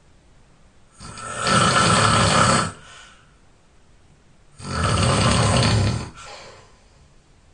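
A person snoring loudly: two long snores about three and a half seconds apart, each lasting about a second and a half and trailing off briefly, with quiet gaps between.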